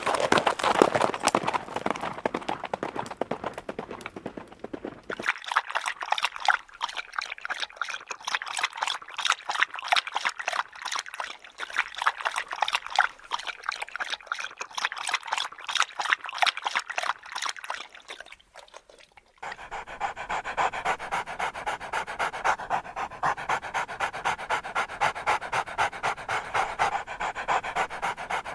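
A dog panting rapidly and steadily. The recording changes twice, about five seconds in and again just before two-thirds of the way through, each time with the same quick panting.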